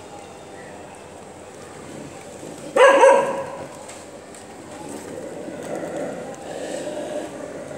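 A stray puppy barks once, a short sharp bark about three seconds in.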